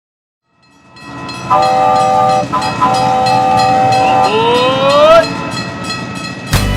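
Train sound effect: wheels clacking in a quick, even rhythm as it fades in, two blasts of a multi-tone train horn, then a rising whistle. Music starts near the end.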